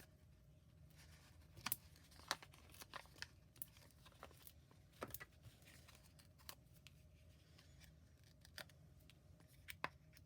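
Faint, scattered clicks and short peeling rustles of foam adhesive dimensionals being pulled off their backing sheet and pressed onto the back of a paper card piece.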